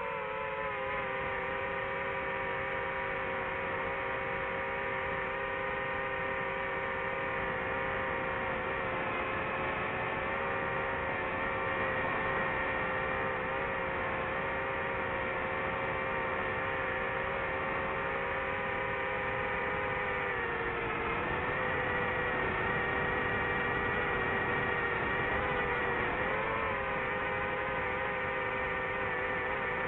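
DJI FPV drone's motors and propellers giving a steady whine, its pitch dipping briefly a couple of times as the throttle changes.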